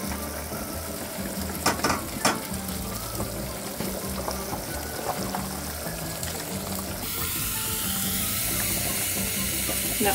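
Background music over stovetop cooking: Brussels sprouts sizzling in oil and a pot of potatoes at a rolling boil, with two sharp clinks of metal tongs against a pan about two seconds in.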